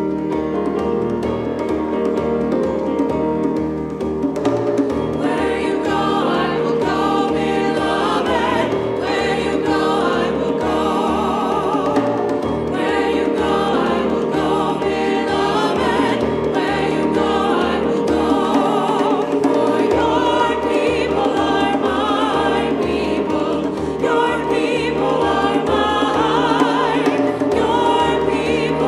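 Robed church choir singing with grand piano accompaniment. The piano plays alone for about the first four seconds before the choir comes in.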